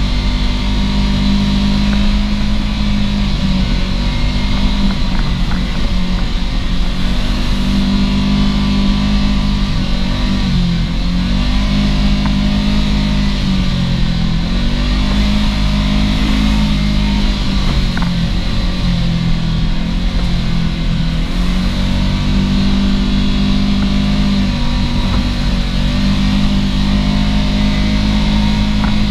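Off-road vehicle's engine running steadily while driving a muddy trail. Its pitch dips and comes back up several times as the throttle eases and opens again.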